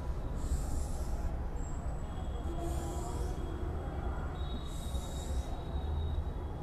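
Whiteboard marker drawing long straight lines: three scratchy strokes, each just under a second, over a steady low rumble.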